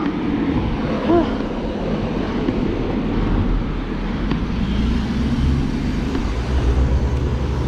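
Wind rush and rolling noise on a cyclist's camera, joined about five seconds in by a steady low engine hum that grows toward the end.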